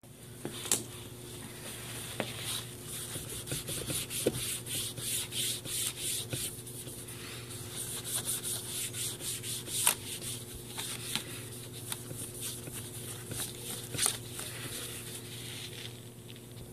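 Paper towel rubbed briskly over a laptop's plastic keys and palm rest: a run of irregular wiping strokes with a few sharper clicks from the keys.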